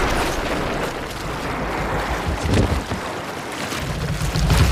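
Seawater splashing and washing over a wooden fishing boat's stern under the weight of a great white shark sliding onto the deck, as film sound effects. Heavy low thuds come in about halfway through and again near the end.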